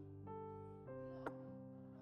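Quiet background keyboard music of sustained chords that change about every half second, with a single sharp click a little past halfway.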